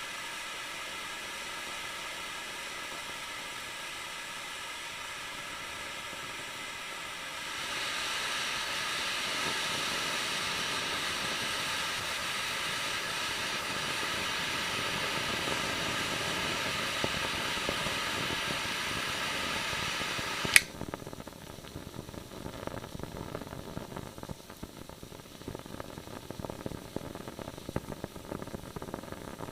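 Flame hissing steadily, growing louder about seven seconds in, then cut off by a sharp click about twenty seconds in. A quieter, irregular crackling of the burning cough drop follows.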